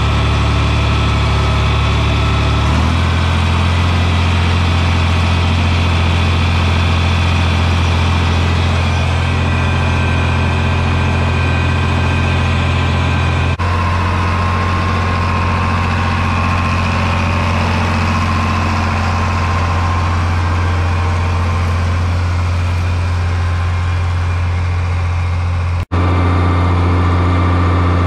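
John Deere tractor engines running steadily under load while pulling tillage implements, a loud low hum. The engine sound changes abruptly about 3 seconds in, halfway through and near the end, with a brief dropout just before the last change.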